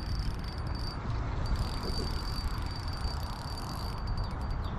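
An insect trilling, one steady high tone that breaks briefly about a second in, over a strong low rumble.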